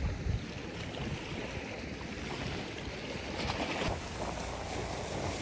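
Steady wind noise on the phone microphone with a low rumble, by open harbour water.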